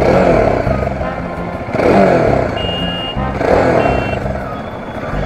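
Motorcycle engine revved up and down about three times over a steady rumble, with two short high beeps in between.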